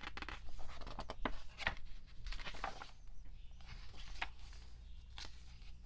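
Paper and card handled by hand: a string of light clicks and short rustles as the photo cards and printed inserts are sorted through.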